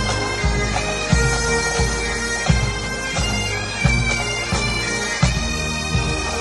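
Pipe band playing on the march: Great Highland bagpipes sounding a tune over their steady drones, with the bass drum beating evenly about one and a half times a second.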